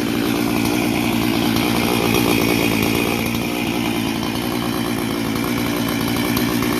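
Freshly rebuilt Husqvarna 268 two-stroke chainsaw running steadily, its engine speed wavering slightly.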